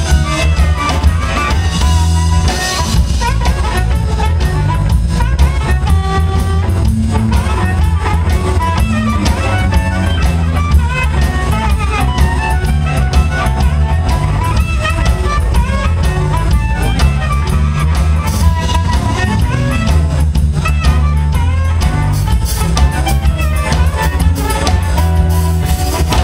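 Live electric blues band playing: drum kit and bass guitar keeping a steady groove under electric guitar and a harmonica playing melody lines.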